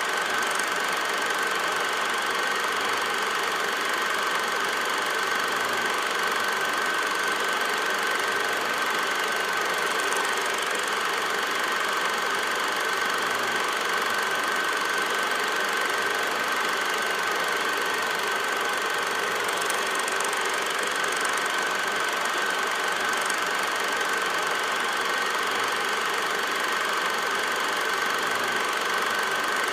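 Steady mechanical whirr of a film projector running, with a constant high whine over it and no other sound.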